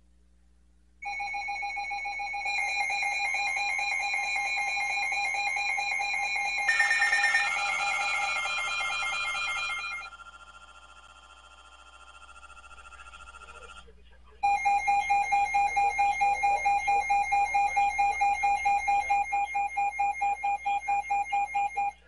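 NOAA Weather Radio alert alarm going off for a severe thunderstorm warning: loud electronic alarm tones start about a second in and drop back about halfway through. A loud, rapidly pulsing beep, about four a second, begins about two-thirds of the way in.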